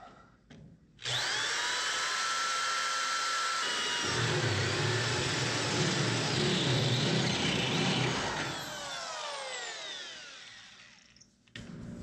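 Drill starts abruptly about a second in and runs with a steady whine. It works through the sheet-metal floor pan for several seconds, making holes for the brake pedal opening, then falls in pitch and winds down as it is released, near the end.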